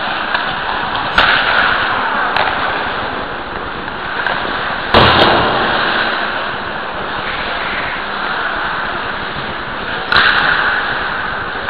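Ice hockey play picked up by a camera on a goalie's helmet: steady noise of skating and rink ambience, broken by several sharp cracks of sticks and puck, the loudest about five seconds in and another near ten seconds.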